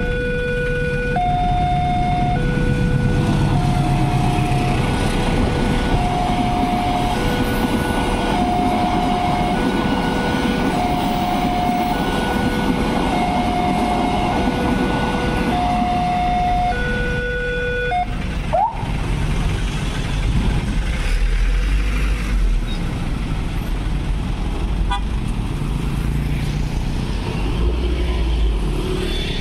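Railway level-crossing warning alarm sounding two alternating electronic tones, each held about a second, while a passenger train rumbles past. The alarm cuts off at about 18 s, and road traffic moves off across the tracks.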